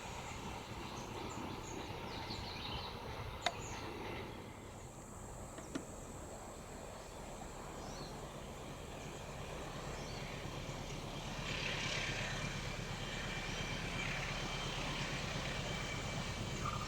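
A distant vehicle rumbles low and steady under open-air background noise. It eases off, then grows louder again from about eleven seconds in, with a sharp click about three and a half seconds in.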